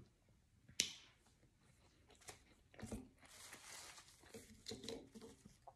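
Faint eating sounds: a person chewing a mouthful, with a sharp click about a second in and scattered soft clicks and mouth noises after it.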